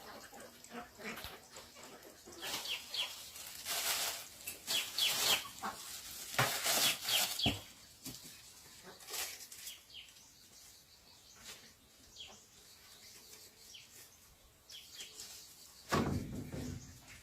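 Farmyard chickens clucking and chirping amid bouts of rustling and scuffling, with a louder scuffle near the end.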